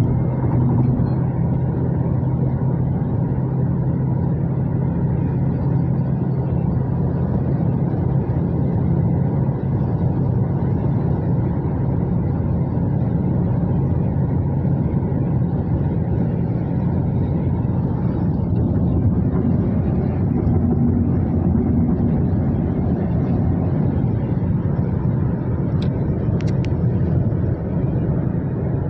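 Steady road noise of a car cruising at highway speed, heard from inside the cabin: a low drone of engine and tyres. A couple of faint clicks come near the end.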